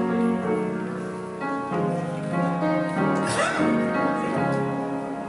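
Slow hymn: a keyboard playing long held chords that change about once a second, with the congregation singing along.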